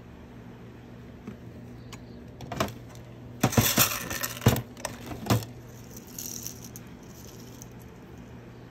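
A handful of small metal pieces scooped up from a drawer, jingling and clattering against each other for about three seconds, loudest near the middle.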